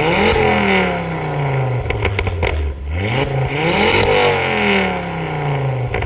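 Ford Fiesta Mk6 ST150's 2.0-litre four-cylinder revved twice through its modified exhaust. Each rev climbs quickly and falls away more slowly, and is followed by a burst of pops and crackles from the exhaust as the revs drop.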